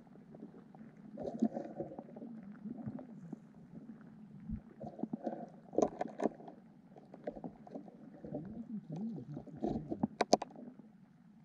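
Muffled underwater stream sound picked up by a submerged camera: low gurgling and rumbling that swells and fades irregularly. A few sharp clicks come around the middle and near the end.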